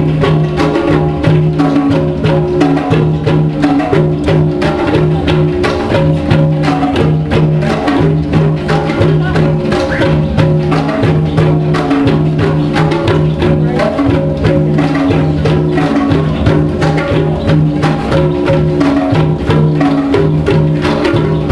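A percussion ensemble led by many tablas played together in a fast, driving rhythm, with a large drum and other percussion.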